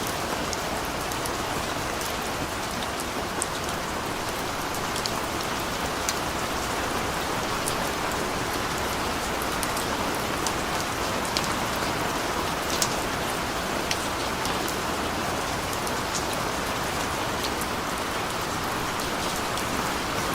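Steady rain falling on a street, a continuous even hiss with scattered sharp drip ticks throughout.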